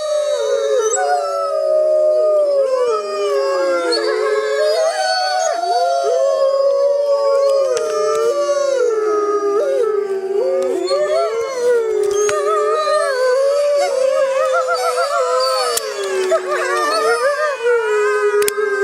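A pack of wolves howling in chorus: several long howls overlap and glide up and down in pitch, with higher, wavering voices above them.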